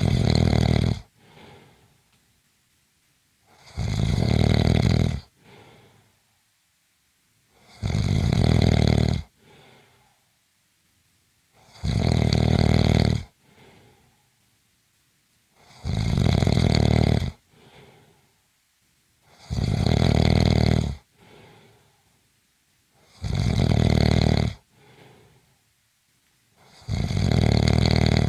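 A person snoring in a steady rhythm, about one loud fluttering snore every four seconds, each lasting over a second and followed by a short, soft breath.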